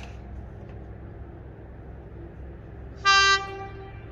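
A train sounds one short toot about three seconds in, over a low, steady rumble.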